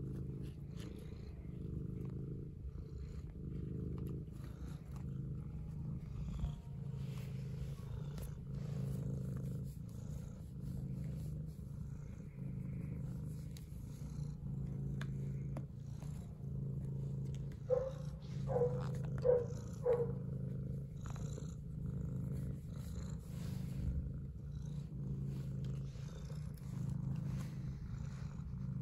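Domestic tabby cat purring continuously, the low purr swelling and easing in a steady rhythm. About two-thirds of the way through, four short, higher-pitched sounds come in quick succession over the purr.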